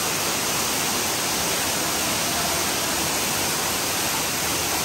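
Ruby Falls, an underground waterfall, pouring steadily into its pool: an even, unbroken rush of falling water.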